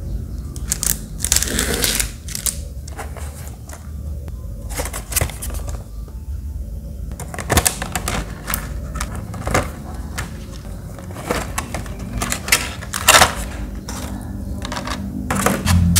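Stiff clear plastic blister packaging handled and pried open by hand, with irregular crackles and clicks and a few sharper snaps, over a steady low hum.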